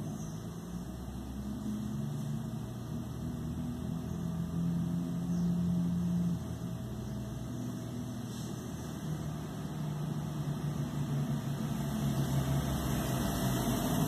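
A steady, low mechanical hum, engine-like, that shifts slightly in pitch.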